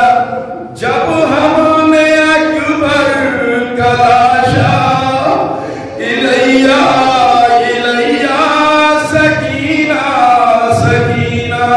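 A man chanting a noha, a mourning lament, in long sung phrases with held, wavering notes and short breaths between them.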